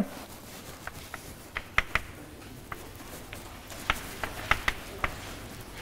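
A string of about a dozen light, irregular taps and clicks from chalk or a pen on a lecture board while writing, over faint room hiss.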